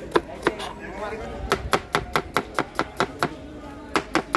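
Knife chopping rapidly on a cutting board, with sharp strikes at about five a second. The strikes pause briefly and start again near the end.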